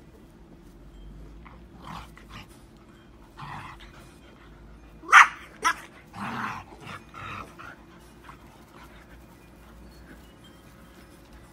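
Dogs barking while play-wrestling: a few softer sounds, then one loud sharp bark about five seconds in, a shorter one just after, and a cluster of smaller barks over the next two seconds.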